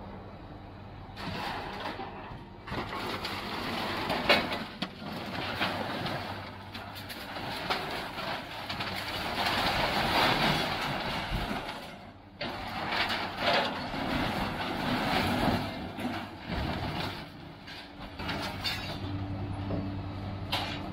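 Scrap-handling excavator with a grapple grabbing scrap steel off a trailer: a steady engine hum under metal scraping, crunching and clanking, with a loud knock about four seconds in.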